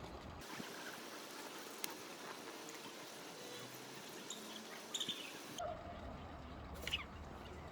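Faint outdoor hiss with a few short, high bird calls, a couple near the end.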